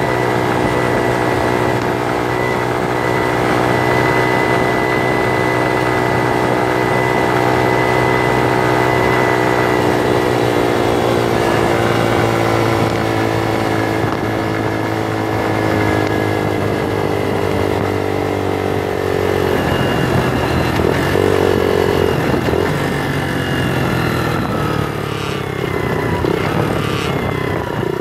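Bullit Hero 125 motorcycle's single-cylinder engine running steadily while riding along at cruising speed. The engine note shifts lower twice partway through and falls in the last few seconds as the bike slows.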